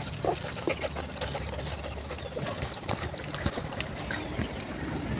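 Close-up chewing and wet mouth sounds of a person eating pork by hand: an irregular run of small clicks, smacks and squelches.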